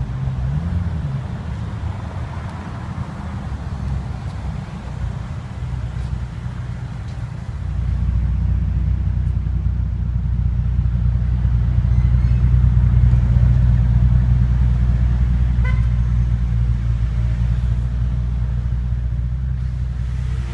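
Car engine running steadily at low revs, a deep even rumble that gets louder about eight seconds in.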